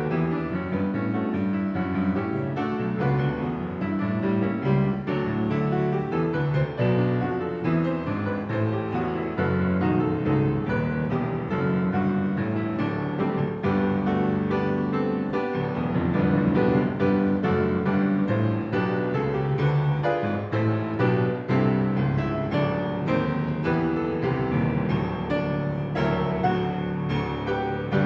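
Piano music, a continuous run of chords and quick notes, typical of a church postlude.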